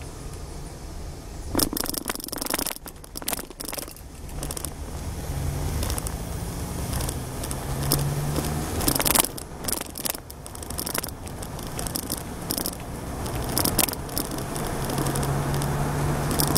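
Car running along a road, heard from inside the cabin: a steady low engine and road rumble whose pitch rises twice as it speeds up, with frequent sharp rattles and knocks.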